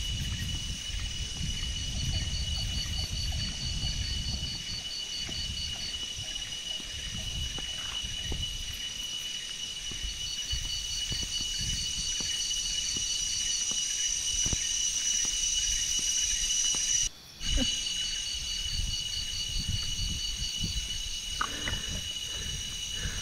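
Tropical forest insects calling: a steady high, shrill chorus of several constant tones with a fast pulsing call over it. Beneath it there is an uneven low rumble. The sound drops out for a moment about two-thirds of the way through.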